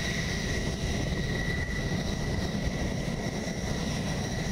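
F-16 fighter jet's engine running steadily as the jet rolls along the runway: a low rumble with a high, steady turbine whine over it.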